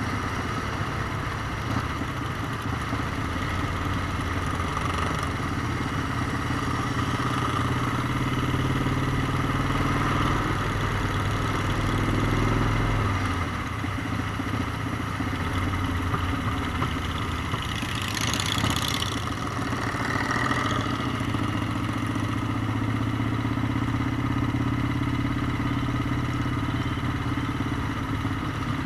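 Motorcycle engine running while riding. Its note is steady at first, then drops lower and a little quieter about thirteen seconds in. A short hissing rush passes about eighteen seconds in.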